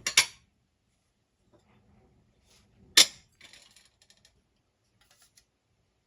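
A beer container being opened and handled: a sharp crack at the start and another about three seconds in, the second followed by a brief crackle and a few faint ticks.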